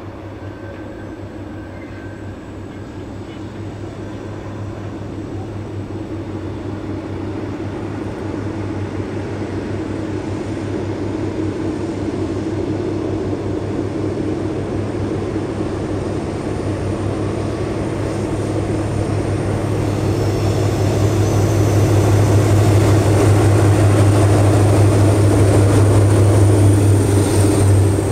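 Two BB 67400-family diesel locomotives coupled together hauling a loaded steel-coil freight train, their engines a steady low drone. The drone grows louder as the train approaches and is loudest near the end as the locomotives pass close by.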